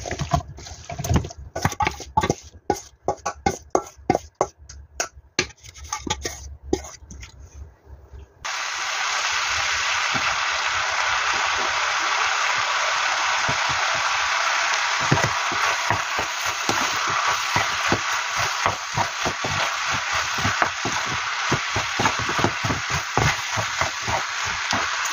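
A utensil scrapes and knocks as marinated squid and vegetables are scooped from a steel bowl into a nonstick frying pan. About eight seconds in, a loud, steady sizzle starts suddenly as the food fries in the hot pan, with the spoon clicking and scraping against the pan as it is stir-fried.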